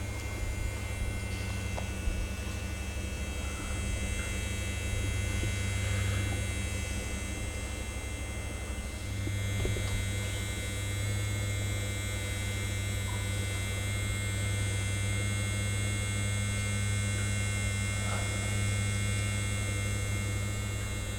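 Steady low electrical hum with a fainter high whine.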